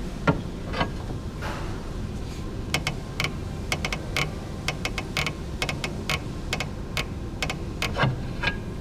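A series of irregular light clicks and knocks, some twenty of them, the sharpest just after the start and near the end, over a steady low background hum.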